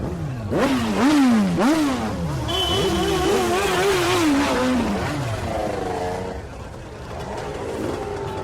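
Motorcycle engine accelerating hard: the pitch climbs and drops back sharply several times as it shifts up through the gears. It then holds at high revs and falls away and fades about five seconds in.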